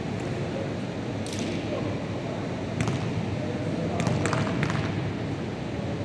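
Basketballs bouncing on a hardwood gym floor, echoing in a large hall: several separate sharp thuds, with three in quick succession about four seconds in, over steady low background noise.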